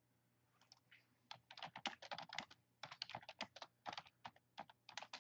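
Typing on a computer keyboard: a quick, irregular run of key clicks, beginning just under a second in.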